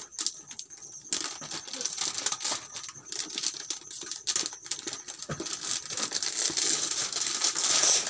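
Clear plastic gift wrap over a paper-wrapped box crinkling and rustling as it is cut with scissors and pulled open by hand, with many small clicks and snips. The rustling grows denser and louder near the end.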